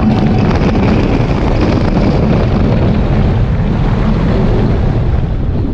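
Rushing wind buffeting an onboard microphone on a fast-moving roller coaster, a loud, steady roar of air with a heavy low rumble from the train.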